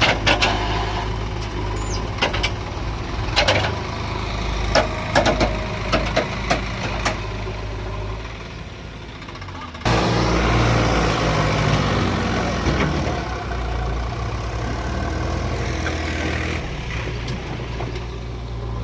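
Heavy diesel engine running steadily, with a series of sharp knocks and clanks in the first half. After an abrupt cut about ten seconds in, the engine runs on and its pitch falls.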